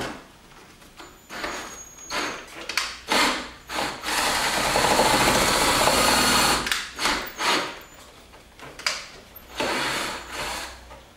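Power drill enlarging holes in the car's rear deck with a bigger bit: several short trigger bursts, then a steady run of about three seconds in the middle, then more short bursts.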